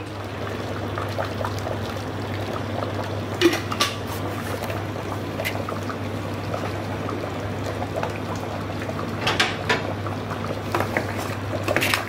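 Goat trotter broth boiling in an open pressure cooker, a steady bubbling with many small pops, over a steady low hum. A few light clicks stand out about a third of the way in and again near the end.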